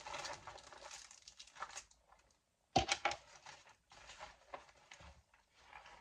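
Rummaging through a bag of sewing supplies: rustling and crinkling of items being moved about, with a sharp knock about three seconds in.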